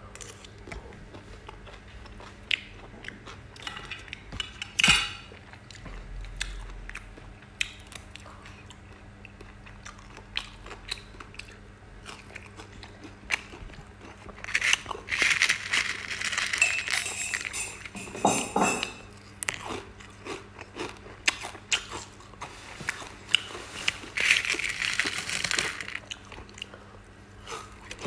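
A person chewing and crunching food close to the microphone, with many small wet mouth clicks. There are two longer stretches of louder crunching, one about halfway through and one near the end.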